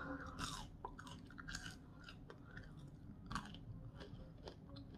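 A person chewing a mouthful of seasoned curly fry, with irregular soft crunches; one is more prominent about half a second in and another just past three seconds.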